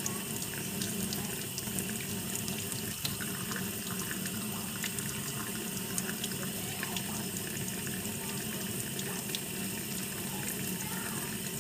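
Kitchen mixer tap running steadily, a thin stream splashing into a stainless steel sink, with scattered small ticks of drips and splashes.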